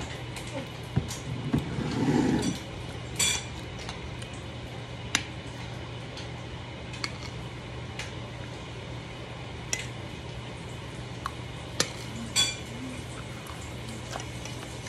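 Metal spoon and fork clinking and scraping against a ceramic plate while eating, in sharp, separate clinks every second or two, with a louder knock and clatter about two seconds in. A low steady hum sits underneath.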